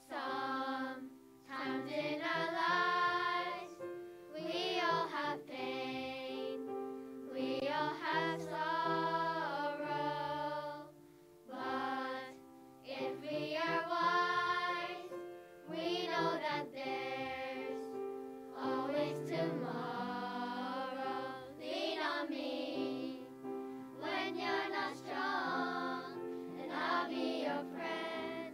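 Children's choir singing a song together over a piano accompaniment, in phrases broken by short breaths.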